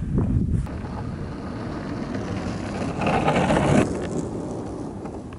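Longboard wheels rolling over asphalt with a steady low rumble. A louder rushing noise comes about three seconds in, then it eases off.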